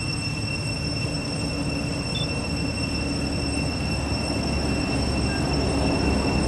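Steady outdoor background noise: a low rumble with several constant high-pitched whines over it, growing slightly louder near the end.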